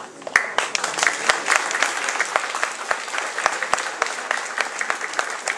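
Audience applauding, breaking out suddenly at the start, with sharp single claps close to the microphone standing out from the crowd's clapping.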